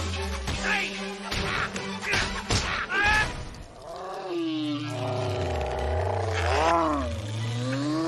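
Animated-film fight soundtrack: music over a quick run of thuds and smacks as bodies tumble down stone stairs. About halfway through, a long, wavering, strained groan rises and falls.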